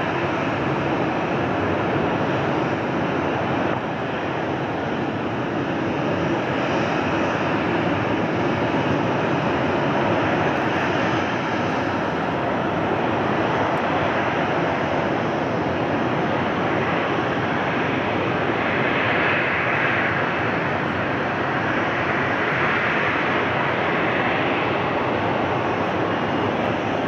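Boeing 737-800's CFM56-7B turbofan engines running steadily at taxi power, an even jet rush with a slightly brighter, higher hiss swelling in the second half.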